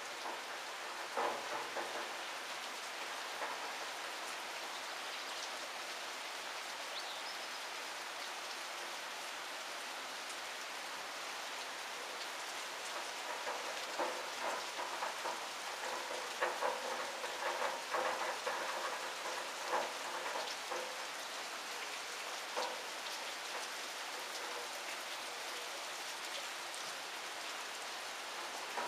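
Steady rain falling, an even hiss, with louder single drops striking close by, more often around the middle.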